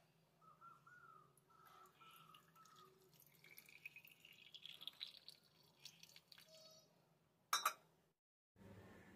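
Water poured from a steel tumbler into a small brass pot, trickling and dripping faintly, with a thin ringing tone that rises in pitch as the pot fills. A sharp knock comes about seven and a half seconds in, then the sound drops out for a moment.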